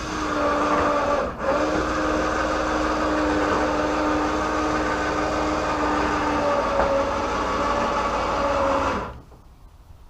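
A small motor running steadily with an even hum. It drops out briefly about a second in, runs on, then stops about nine seconds in.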